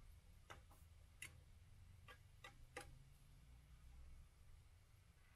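Faint, irregular clicks of a metal fork tapping a non-stick frying pan as carrots and a chicken breast are turned, about half a dozen in the first three seconds, over a low hum.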